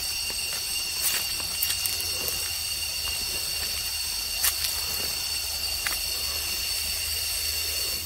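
Steady, high-pitched drone of forest insects, several even tones layered together, with a few light knocks and a low rumble underneath.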